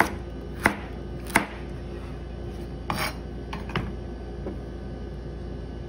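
Chef's knife slicing a carrot on the bias against a plastic cutting board: three sharp knocks of the blade on the board about 0.7 s apart, then a few softer knocks around three to four seconds in.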